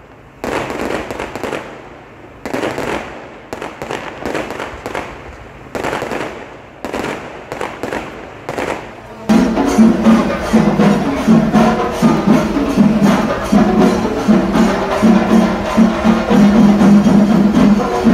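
Aerial fireworks bursting with a crackling bang about once a second. About nine seconds in they cut off abruptly, replaced by louder music with a steady percussion beat and held low notes.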